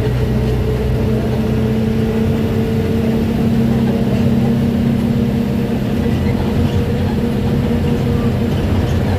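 Mercedes-Benz OF-1722M bus under way, its differential growling: a loud, steady whine over the running noise that rises a little in pitch in the first few seconds and then holds.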